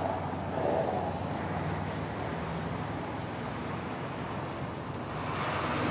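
Toyota 1KZ-TE 3.0-litre turbo-diesel inline-four idling steadily, heard from the rear at the tailpipe.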